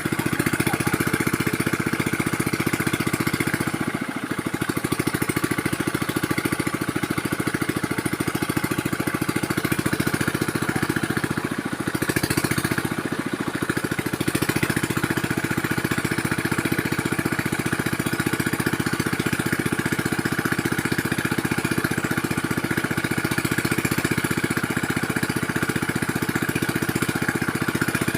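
Small engine running steadily at an even speed, with two brief dips in loudness about four and twelve seconds in.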